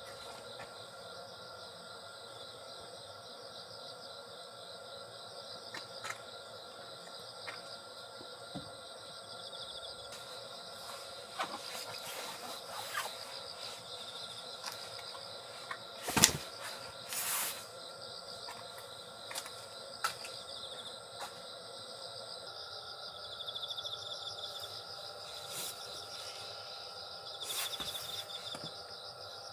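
Crickets trilling steadily, with scattered clicks and knocks over them. The loudest is a sharp knock about halfway through, with a short rustle just after it.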